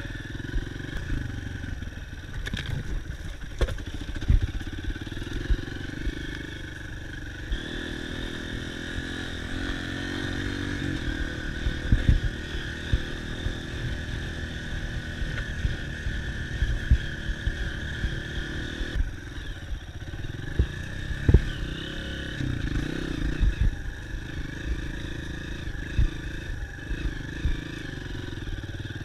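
Dirt bike engine running under way, its pitch held steady for a long stretch in the middle, with frequent sharp knocks and clatter.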